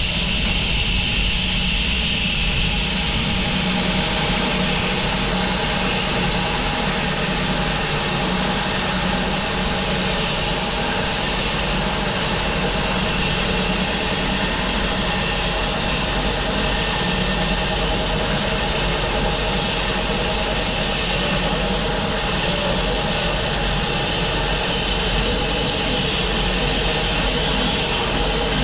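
Bandsaw mill's engine running steadily under load as the band blade cuts lengthwise through a willow log.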